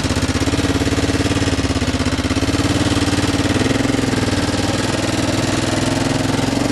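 Car engine idling steadily with a fast, even pulse and a low hum, heard from inside the car.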